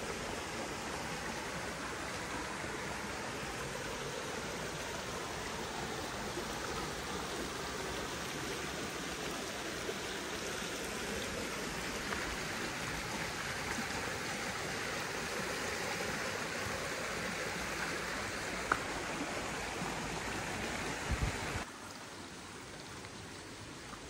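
Shallow rocky creek water running over and around stones, a steady rushing and rippling. Near the end a few soft low thumps are heard, and the water sound then drops suddenly quieter.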